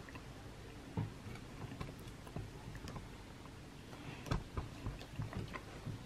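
Knife and fork clicking and scraping on a ceramic dinner plate while a steak meal is cut and eaten: faint scattered clicks, one about a second in and a small cluster about four to five seconds in.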